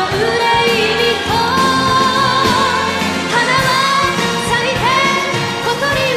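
Japanese pop ballad music: a melody line with vibrato carries over a full band accompaniment, with no sung words.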